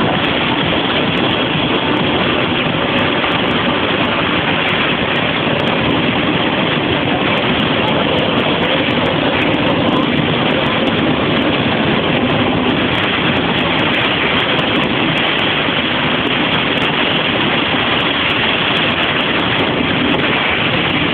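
Jet car's turbine engine running steadily at idle, a loud, even rushing noise with no change in pitch or level.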